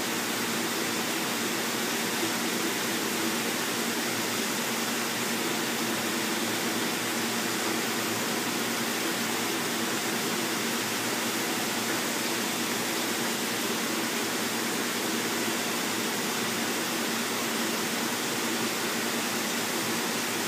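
Water splashing steadily from a PVC inlet pipe into a round sea-turtle tank, an even rushing that does not change, with a faint steady hum underneath.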